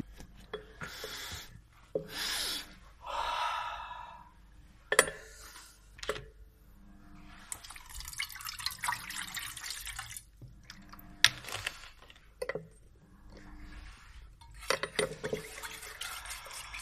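Water poured from a plastic bottle into a metal pot of burnt paper ash, splashing for about three seconds midway. Handling and rustling noises and a few sharp clicks come before and after.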